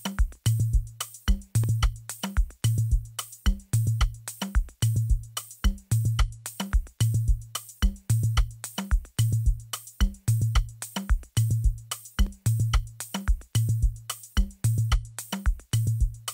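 Programmed drum loop playing from FL Studio: a kick drum hits about every 0.8 seconds, with quick shaker ticks in between. The whole drum bus runs through FL Studio's Fruity Compressor, whose setting is being relaxed so it squashes the kick less.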